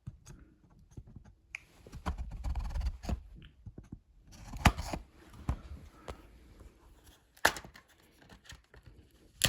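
Plastic shrink wrap being torn and crinkled off a DVD case, in irregular rustling stretches, followed by a few sharp clicks of the plastic case being handled and opened.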